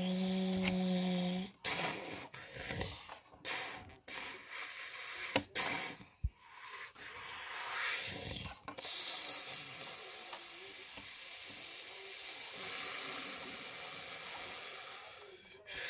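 Rubbing and scraping as plastic LEGO bricks are handled and pressed together on a table, heard as a hissy haze with a few small clicks, broken by sudden cuts. A short low pitched tone, stepping up once, sounds in the first second or so.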